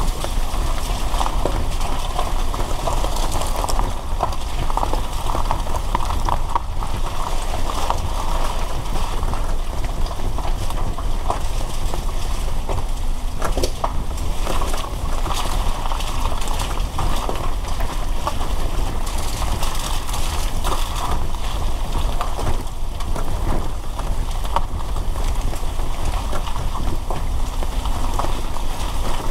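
Rain falling on a moving car, with many irregular ticks of drops striking it over the steady hiss of tyres on a wet road and a low rumble from the car.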